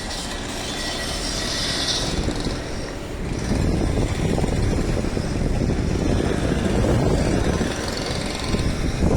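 A train running by with a steady rumble and rolling noise that swells louder about a third of the way in.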